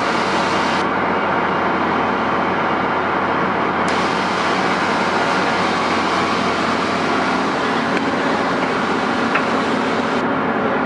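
Heavy diesel construction machinery running steadily under load, with a constant low engine drone.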